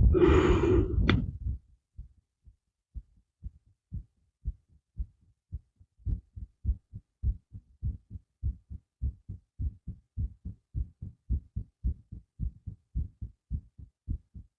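A person's heartbeat picked up by a microphone held still against the body: a steady run of short, low thumps, faint at first and stronger from about six seconds in. A brief loud rush of noise comes in the first second and a half.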